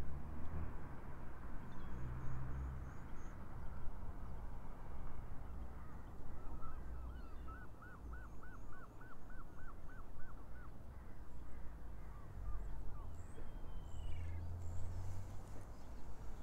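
Waterbirds calling over the bay: in the middle comes a rapid run of about a dozen repeated calls, roughly three a second, with faint high chirps here and there. Underneath is a steady low rumble.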